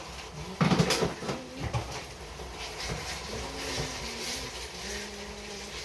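Kitchen pot and utensil handling while cooking: a short clatter about half a second in, then quieter handling noise with a faint low hum.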